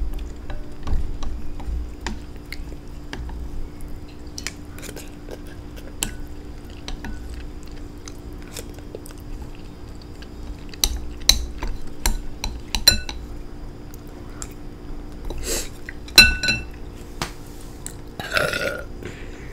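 A person eating noodles: chewing with many light clicks and clinks of cutlery against a bowl, one louder ringing clink about three-quarters of the way through, and a burp of about a second near the end.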